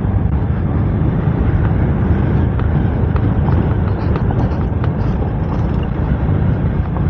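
A vehicle moving along: a steady low rumble of engine and road noise, with a few light knocks.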